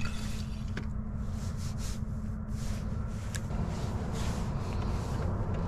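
A motor running steadily with a low hum, with short swishing noises coming and going over it.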